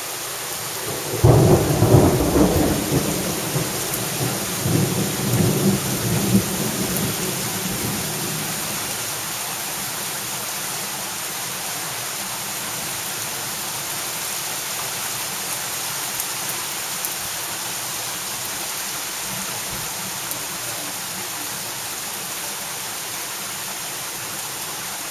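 Heavy rain falling steadily on pavement and parked cars. About a second in, a loud thunderclap breaks and rumbles away over the next several seconds.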